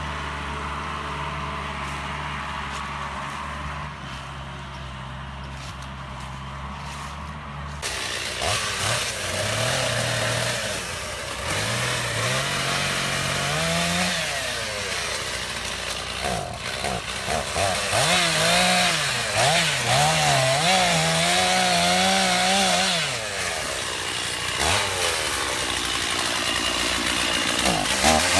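A tractor engine runs steadily. About eight seconds in it gives way abruptly to a chainsaw, whose engine pitch rises and falls over and over as it is revved through the rest.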